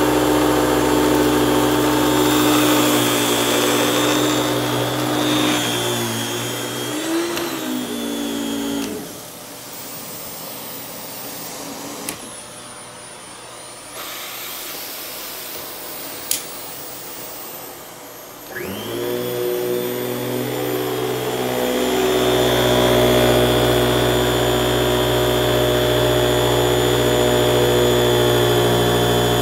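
Eureka Express canister vacuum with its powerhead running on carpet, a steady motor hum with a brushroll whir. About nine seconds in it is switched off and winds down. After a quieter stretch with a couple of clicks, it is switched back on near the middle and spins up to full speed again.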